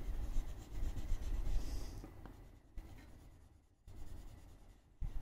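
Crayon rubbing back and forth on paper as an area is coloured in: a scratchy scribbling, strongest in the first two seconds, softer after that, breaking off briefly near the end and starting again.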